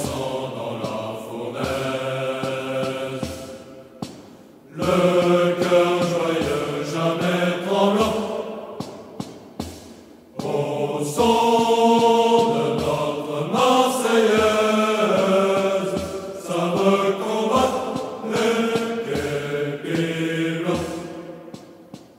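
A choir of low voices chanting a slow march-like song in long phrases over a regular beat, with two short breaks between phrases. It fades out near the end.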